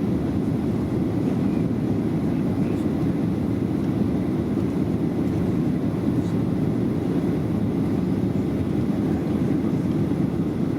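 Steady low rumble of a Boeing 737-700's cabin in flight: the CFM56-7B turbofan engines and the airflow over the fuselage, heard from a seat inside the cabin.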